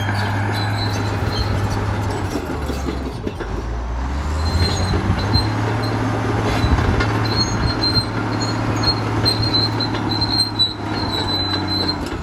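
A heavy diesel engine running steadily with a low hum, and a thin high squeal coming and going through the second half.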